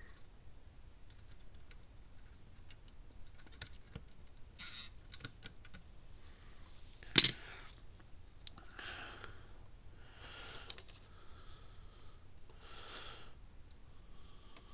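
Small tools and parts handled on a workbench during a soldering repair: scattered light clicks and taps, one sharp snap about seven seconds in, and a few soft breaths.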